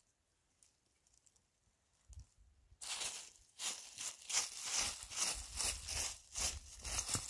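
Near silence for about three seconds, then a quick run of rough crunching and rustling strokes, two or three a second.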